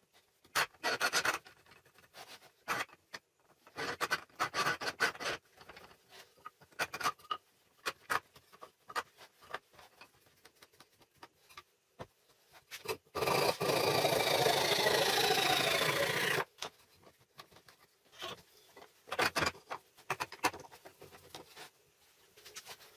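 Woodworking handling sounds: scattered scrapes, rubs and clicks of wooden parts and hand tools, with short quiet gaps. About halfway through comes a louder stretch of about three seconds of continuous scraping or cutting noise, with a tone sliding downward, that stops abruptly.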